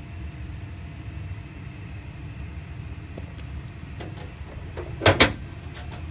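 Fire alarm system resetting: two sharp clicks about a fifth of a second apart, roughly five seconds in, over a steady low rumble.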